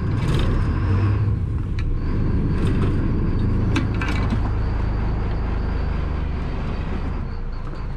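Crabbing workboat's engine running steadily with water noise along the hull, a faint high whine above it, and a few sharp knocks as a crab pot float is handled at the pot puller.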